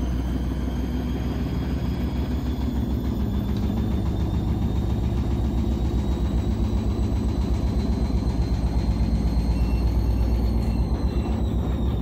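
Gorenje SensoCare 8 kg front-loading washing machine spinning its drum: a steady low rumble with a faint motor whine that rises slowly in pitch, then drops about ten seconds in as the drum slows.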